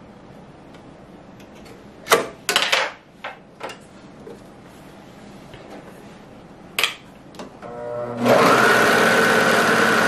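Juki MO654DE serger: a few sharp plastic clicks as it is handled and its front cover shut, then its motor spins up near the end and runs steadily at speed with no fabric under the foot, chaining off thread.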